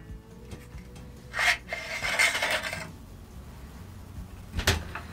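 Bolt carrier group of a gas blowback airsoft rifle being slid out of the receiver: a scraping slide lasting about a second and a half, starting a second and a half in, then a single sharp click near the end.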